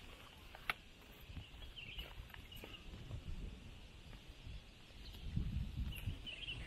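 Faint outdoor ambience: a few short high chirps, a single sharp click a little under a second in, and wind buffeting the microphone from about five seconds in.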